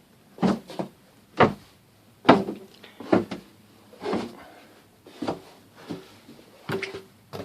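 Slow footsteps going down stairs: about nine dull knocks, roughly one a second, in a small room.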